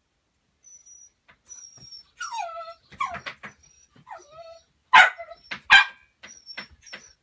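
Tibetan terrier whining with falling-pitch yelps, then two loud barks less than a second apart.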